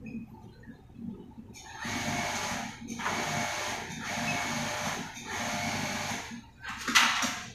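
Industrial sewing machine running in four bursts of about a second each, with short pauses between them. A sharp click comes near the end.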